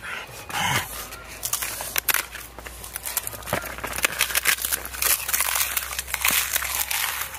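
People eating rice by hand from dry disposable plates, close up: a dense run of crinkling and crackling from the plates being handled, mixed with chewing and lip-smacking clicks.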